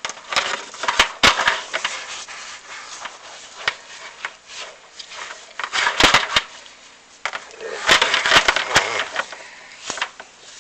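A chimney inspection camera scraping and knocking against the walls of a glazed flue as it is lowered. Rough scraping bursts are mixed with sharp knocks, the loudest about six seconds in and a longer rasping stretch near the end.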